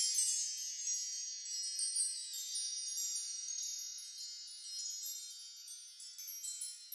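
Wind chime sound effect: a high, shimmering spread of chiming tones that fades slowly, with fresh strikes scattered through it.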